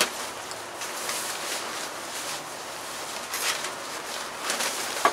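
Plastic tarp rustling and crinkling as it is pulled and bunched up by hand, with a few louder crackles in the second half.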